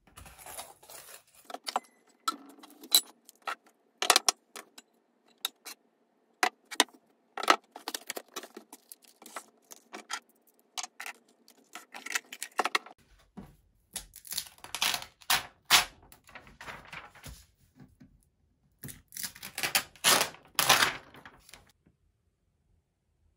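Small desk items being handled and moved: a rapid string of clicks, clinks and rattles from bottles, boxes and a clear plastic drawer case full of small accessories. There are two denser bursts of rattling in the second half.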